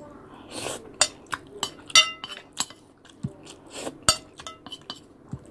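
Eating at a porcelain plate: scattered light taps and clicks, with one ringing clink of tableware on the plate about two seconds in.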